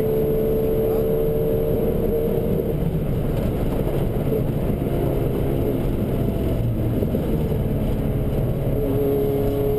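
Opel Astra F GSi rally car's four-cylinder engine running hard under load, heard from inside the cabin together with road and tyre noise; its tone holds steady for the first few seconds, then shifts about.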